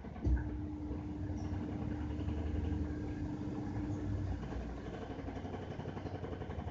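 Washing machine running: its motor kicks in with a thump about a third of a second in and hums steadily for about four seconds before cutting out, over a continuous low rumble.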